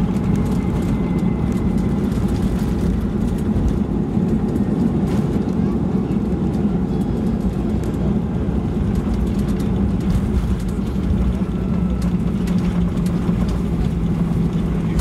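Steady cabin noise of a jet airliner rolling out after touchdown on a wet runway, ground spoilers up: a loud, even rumble with a low hum running through it.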